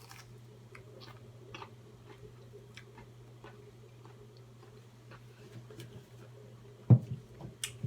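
Quiet eating sounds: scattered soft, irregular clicks of chewing and mouth noises over a steady low hum, with a sharp thud about seven seconds in.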